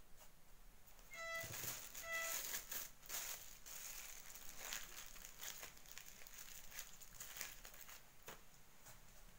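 Small plastic bag of glitter crinkling and rustling in the hands for several seconds. Two short squeaky tones come about a second in, a second apart.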